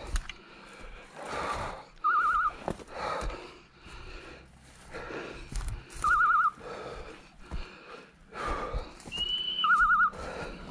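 A hunting dog's electronic beeper collar sounding a short warbling trill three times, about four seconds apart, the regular signal it gives while the dog is on the move.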